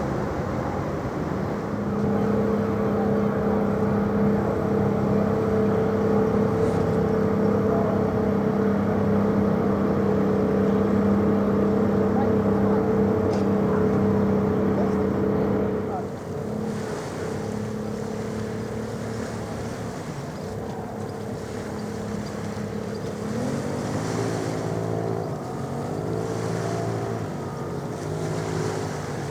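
A large ship's engines give a steady, even hum that stops about halfway through. Near the end comes a quieter sound whose pitch wavers up and down.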